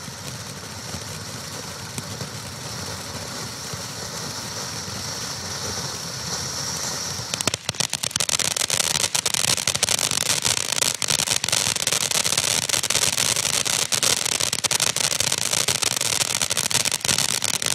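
Black Cat Big Cat ground fountain firework spraying sparks with a steady hiss. About seven seconds in it switches to a louder, dense crackling that keeps going.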